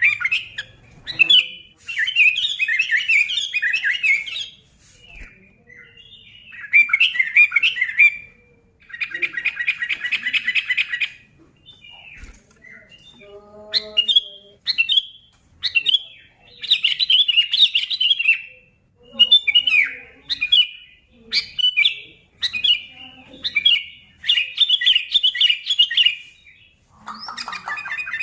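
Sooty-headed bulbul (kutilang) singing loudly and busily: short chattering, warbled phrases repeated with brief gaps, with a fast, even trill about nine seconds in.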